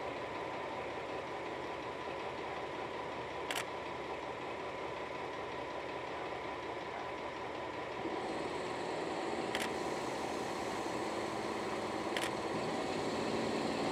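Diesel engine of a DR class 112 (V 100) diesel-hydraulic locomotive running steadily. It gets louder about eight seconds in. Three sharp clicks come in between.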